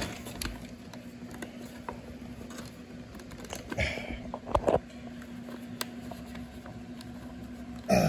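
Scattered plastic clicks and knocks from handling the Dyson DC25's motor ball while working its filter cover loose to take out the HEPA filter, with a louder knock about halfway through.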